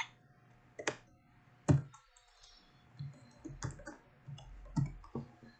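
Computer keyboard keystrokes: a few single presses, then a quicker run of typing after about three seconds.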